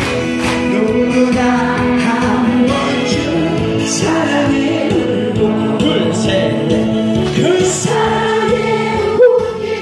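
A large group of women singing along together in unison to a Korean song over a loud instrumental accompaniment.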